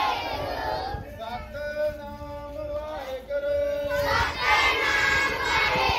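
A group of schoolchildren chanting God's name together in unison, many voices loud at the start and again from about four seconds in, with steady held notes in the quieter stretch between.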